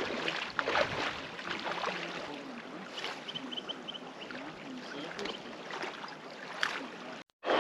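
Gentle water splashing and lapping at a lake's edge, with scattered small knocks and a short run of high chirps about three seconds in.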